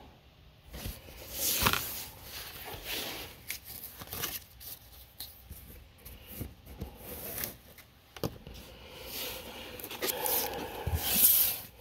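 Magic: The Gathering cards and foil booster-pack wrappers being handled: scattered rustling and scraping, with a louder crinkle near the end as a sealed foil pack is picked up.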